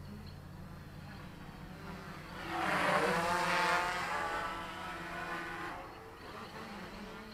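Quadcopter on 3S with 10x4.5 propellers buzzing as it flies, swelling much louder about two and a half seconds in as it comes close, then fading again about three seconds later.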